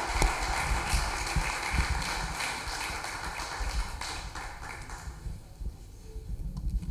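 Applause: scattered handclaps that thin out and die away about five seconds in, with a few low thuds.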